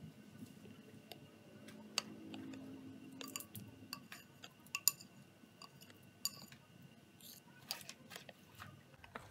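Metal spoon faintly clinking and scraping against a ceramic cup while folding whipped coffee paste into milk, with a few sharper clinks about two and five seconds in.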